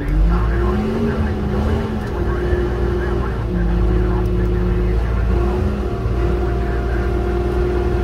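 Bulldozer's diesel engine running steadily, with a whine laid over it that holds one pitch for a second or two and then steps to another, several times.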